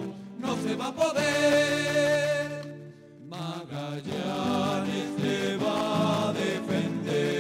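Music playing, with long held notes; it dips briefly about three seconds in before carrying on.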